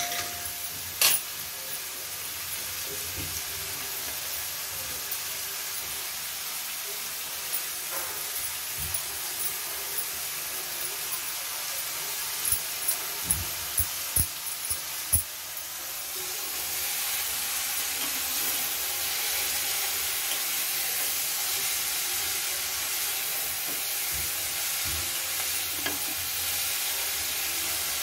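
Shredded cabbage sizzling in a hot metal pan, with a metal spoon clinking against the pan a few times as it is stirred. The sizzling grows louder a little over halfway through.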